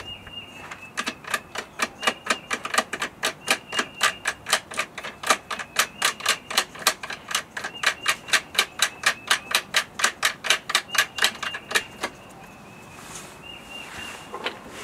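Ratcheting tool clicking in a fast, even rhythm, about four or five clicks a second, as a screw and nut are tightened; the clicking stops about twelve seconds in.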